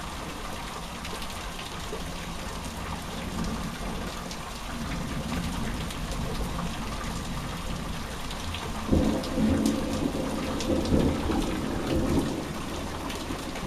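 Steady rain falling during a thunderstorm, with a roll of thunder rumbling in about two-thirds of the way through.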